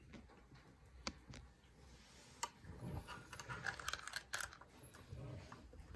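Small mechanical clicks from the controls of a Mamiya C330 Pro twin-lens reflex camera being worked by hand: a few single clicks, then a busier run of clicks about three to four and a half seconds in.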